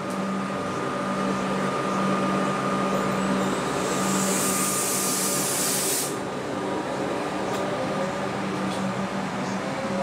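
A Melbourne suburban electric train humming steadily at a platform. About four seconds in, a loud burst of air hiss from its pneumatics lasts about two seconds and stops sharply, as the train starts to pull away.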